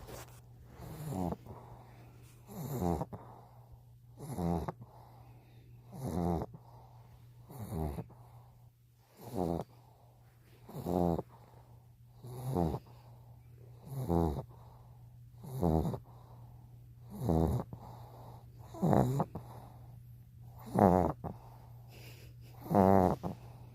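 Dog snoring: a regular snore about every second and a half, each one a short pitched drone that wavers, with the last few louder. A steady low hum runs underneath.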